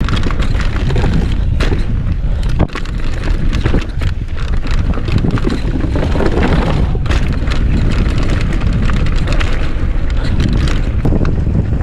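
Downhill mountain bike running over a rough trail: a steady rumble of wind buffeting the camera microphone, with the rattle and sharp knocks of the bike over the ground.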